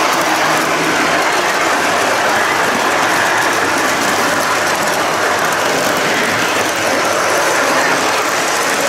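Model train rolling on metal track, heard from a wagon riding in the train: a steady, dense rattle of metal wheels on the rails.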